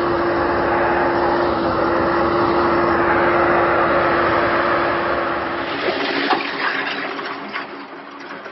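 HEN AG road milling machine running, a loud steady rushing roar with a steady hum. After about six seconds it fades, and scattered knocks come through.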